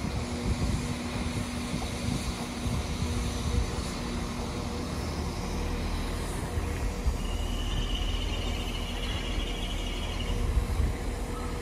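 Northern Class 195 diesel multiple unit moving slowly through the station: a steady engine drone over a low rumble of wheels on track. From about seven seconds in, a high wheel squeal joins.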